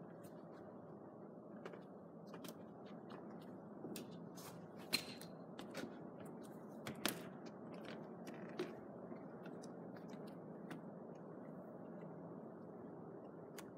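Faint steady hiss with scattered small clicks and light knocks. Two sharper clicks stand out, about five and seven seconds in.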